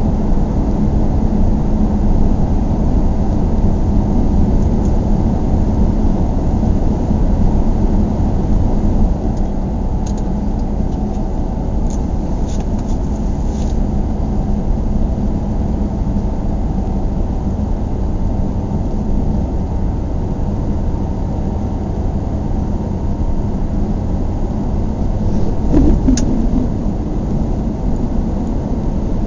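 Car driving slowly on city streets: steady low engine and tyre rumble. A few faint clicks in the middle and one brief louder bump near the end.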